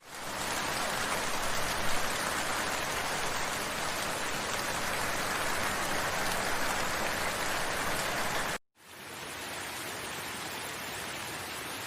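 Recorded rain sound effect: a steady, dense hiss of heavy rain. It cuts out suddenly for an instant about nine seconds in, then resumes slightly quieter.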